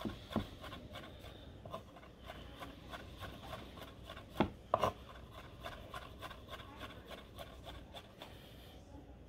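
Chef's knife chopping capers on a wooden cutting board: a run of light, rapid taps of the blade against the board, with two louder knocks about halfway through, stopping just before the end.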